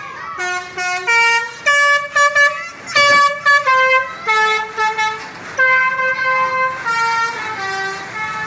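Basuri telolet musical horn on a tour bus playing a tune: a rapid run of loud, distinct horn notes stepping up and down in pitch, each held a fraction of a second with short breaks between, over a low engine hum.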